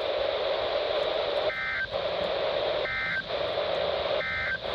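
NOAA Weather Radio SAME end-of-message code sent over the air: three short, identical digital data bursts about a second and a half apart, with steady radio hiss between them, closing the Required Weekly Test broadcast.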